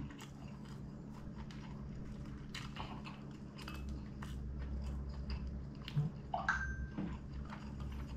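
Close-up chewing and crunching of crispy fried chicken, with many small irregular clicks from the mouth.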